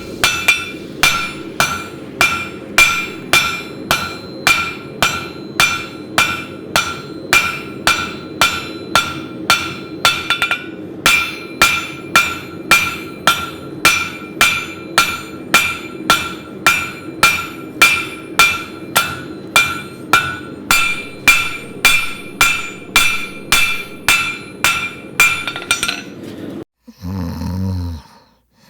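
A forging hammer striking steel on an anvil in a steady rhythm, about two blows a second, each blow ringing, with a brief pause about ten seconds in. The hammering stops near the end, followed by a short, low, breathy sound.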